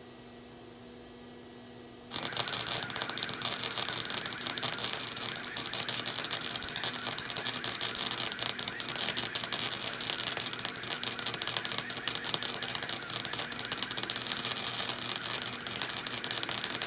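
Flux-core wire welder arc striking about two seconds in, then crackling and sputtering steadily as a bead is run on steel exhaust pipe.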